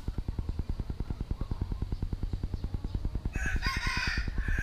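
A rooster crowing once, starting about three quarters of the way through, over a steady fast low throb of about ten pulses a second.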